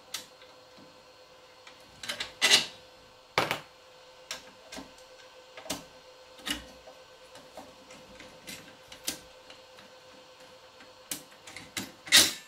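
Irregular clicks and knocks of metal parts and tools being handled while a crypto-mining unit's fan assembly is taken apart, with a few louder clunks about two and a half, three and a half and twelve seconds in.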